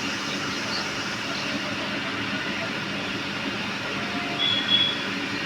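Indian Railways train running past close by, a steady rolling and rushing noise, with a brief high tone about four and a half seconds in.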